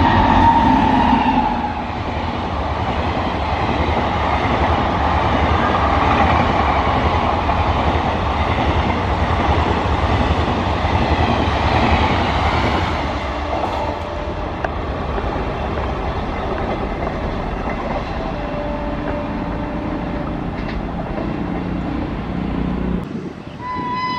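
Express train hauled by an electric locomotive passing at speed close by: a steady loud rumble and rattle of the coaches' wheels on the rails, with a high steady tone in the first second or two. The noise drops off suddenly near the end.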